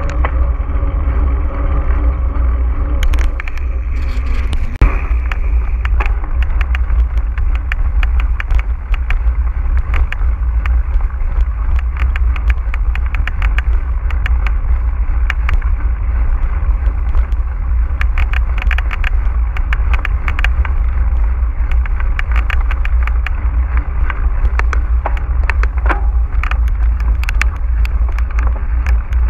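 Mountain bike riding over rough ground: a steady low wind rumble on the microphone under a constant run of clicks, knocks and rattles from the bike. A pitched hum fades out about four seconds in.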